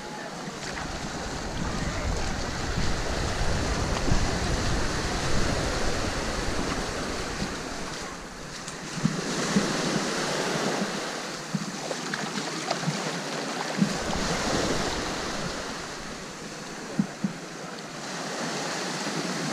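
Small waves washing up and running back on a sandy beach, the wash swelling and ebbing. Wind rumbles on the microphone through the first several seconds and again briefly later.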